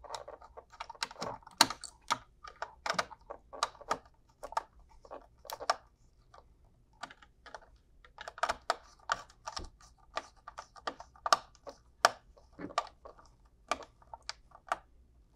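Small screwdriver tightening the screw terminals on a Zooz ZEN16 relay's plastic terminal block: irregular small clicks and scrapes of the blade in the screw heads, with a short pause about halfway through.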